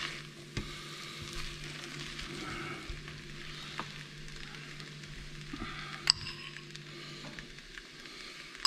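Pinto beans and onions frying in lard in an enamelled cast-iron pot, a steady soft sizzle as they are stirred and mashed with a potato masher. A few light knocks of the utensils against the pot, the sharpest about six seconds in.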